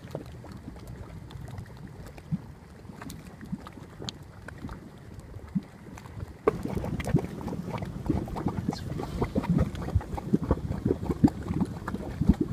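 Geothermal mud pot bubbling: irregular short plops and pops as gas bursts through the hot mud. It is sparse and quieter at first, then louder and busier from about halfway through.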